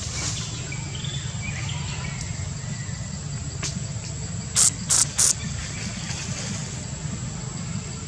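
Outdoor forest ambience: a steady high insect drone over a low rumble. About halfway through come three short, sharp, high-pitched sounds in quick succession, louder than everything else.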